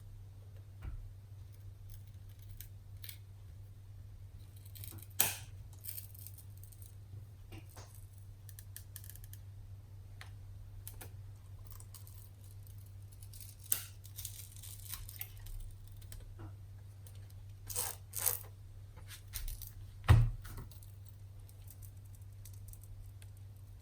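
Prying tool working the glued touch-screen digitizer glass off its adhesive: scattered clicks, snaps and light scraping, with the loudest sharp snap about twenty seconds in, over a faint steady low hum.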